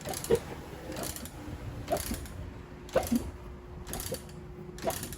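Honda Pop 110i single-cylinder engine making a mechanical clacking noise, sharp clacks about once a second, with the engine not running on its own. The noise comes from a worn oil-pump drive gear and roller that also tension the cam chain, in an engine that ran short of oil.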